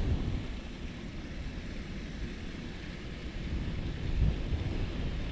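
Wind buffeting the microphone: a low, steady rumble with a gust swelling about four seconds in.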